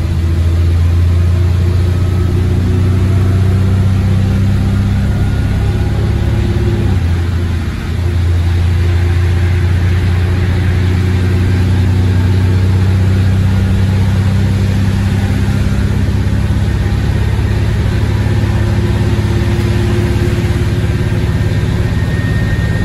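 Bus diesel engine worked hard at full throttle after an automatic-gearbox kickdown, a steady loud drone heard from inside the saloon, with a brief dip about eight seconds in as the gearbox changes gear.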